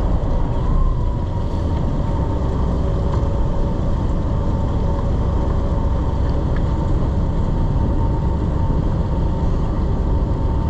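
Party boat's engines running steadily underway, a continuous low drone with a faint steady hum, mixed with wind rumbling on the microphone.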